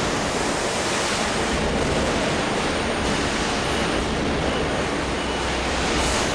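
Steady, even rushing noise of a stamping-press shop floor around a large press fitted with traveling die clamps, with no distinct knocks or clamping strokes.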